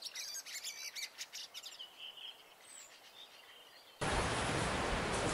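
Small birds chirping and trilling in quick, high calls that thin out after about two seconds. About four seconds in, a steady rushing noise cuts in suddenly and is louder than the birds.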